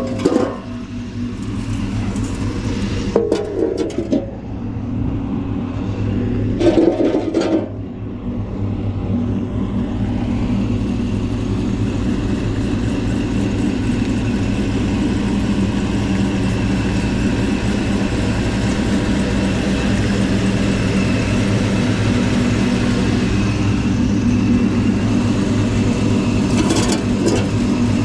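An engine running steadily at idle, with a few metal clanks and knocks in the first eight seconds and again near the end.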